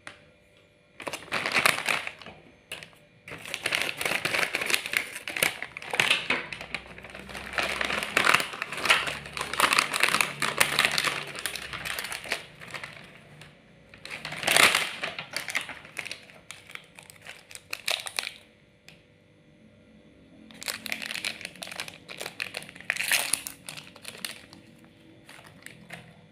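Plastic chocolate-bar wrappers and their outer bag crinkling and rustling as they are handled and one bar is unwrapped. The crinkling comes in bursts, with a short lull about two-thirds of the way through.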